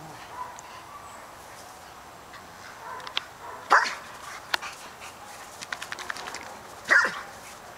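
Dogs playing rough and barking: two loud play barks about three seconds apart, with a few short, sharp sounds between them.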